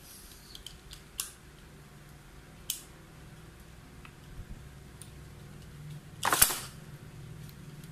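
Small plastic clicks as a Beyblade top is fitted onto its launcher, with one louder plastic clack a little after six seconds, over a faint steady hum.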